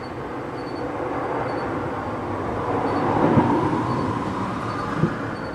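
A vehicle going past: a rushing, rumbling noise that swells to its loudest about three seconds in and then fades, with a thump near the peak and a short knock near the end.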